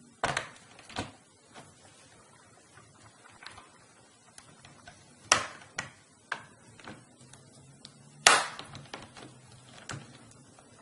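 Scattered sharp clicks and taps of a screwdriver and handling on a laptop's underside as the two screws of the hard drive compartment cover are undone. The loudest clicks come a little past the middle and again after about eight seconds.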